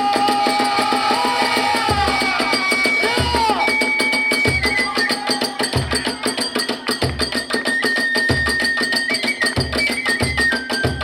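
Kagura hayashi music: a bamboo flute plays long held notes that step between pitches, over fast, continuous clashing of small hand cymbals and regular beats of a large drum.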